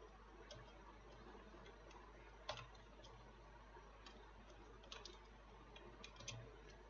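Faint, irregular computer-keyboard keystrokes, a handful of single clicks that come closer together in the second half, over a low steady hum.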